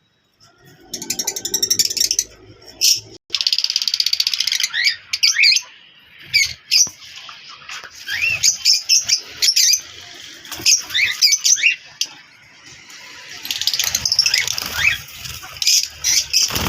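Caged pet parrots and lovebirds chattering: many short, high chirps and squeaky rising calls, with bursts of fast buzzy chatter, starting about half a second in.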